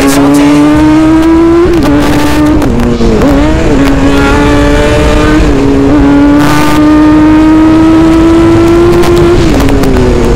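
Kawasaki Z1000 inline-four engine running loud under way, its pitch climbing slowly and dropping back several times as the throttle and gears change, with a marked drop near the end.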